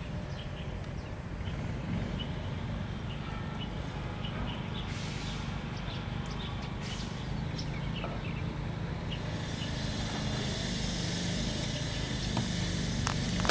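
Roadside traffic ambience: a steady low rumble, with a hiss that grows about two-thirds of the way in as a vehicle draws near, and scattered bird chirps.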